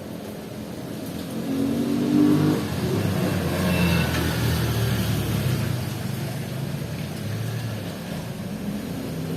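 A motor vehicle's engine accelerating past, loudest about two seconds in and fading over the next several seconds, over the steady hiss of heavy rain.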